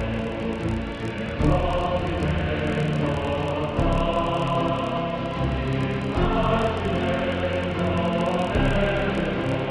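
Choral music: a choir singing held chords that change every couple of seconds.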